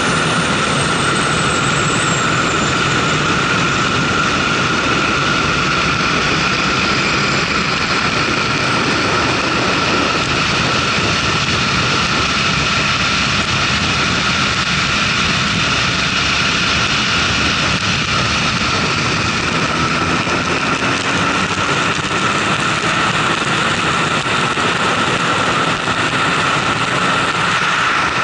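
Heavy wind noise on a camera riding on a fast-moving motorcycle, with the bike's engine running underneath. In the second half a faint engine note rises slowly as the bike speeds up.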